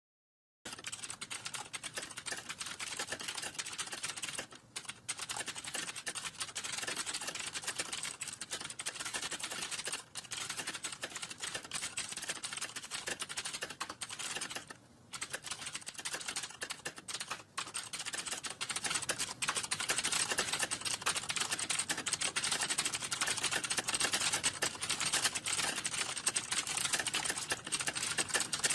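Fast, continuous typing on a computer keyboard: a dense stream of key clicks with a few brief pauses. It starts just under a second in and grows louder about two-thirds of the way through.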